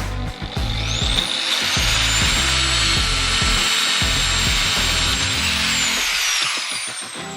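An electric power tool's motor spins up with a rising whine, runs steadily at speed for about five seconds, then winds down near the end. Background music plays underneath.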